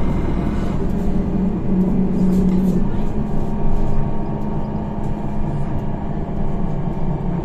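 Higer KLQ6129GQ2 diesel city bus running, heard from inside the cabin: a steady engine and driveline drone whose pitch shifts slightly about three seconds in, with light rattles.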